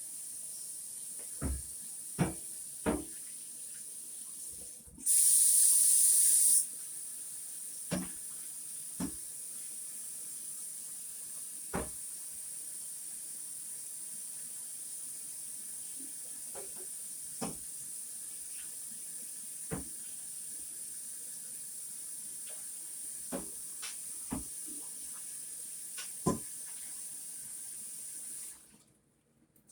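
Kitchen faucet running steadily into the sink while a cooking pan is washed, with scattered knocks of the pan against the sink. The water rushes much louder for about a second and a half around five seconds in, and the faucet shuts off abruptly near the end.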